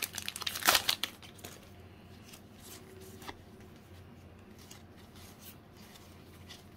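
Foil wrapper of a Pokémon card booster pack crinkling and tearing as it is opened, loudest in the first second or so, then only faint scattered rustles.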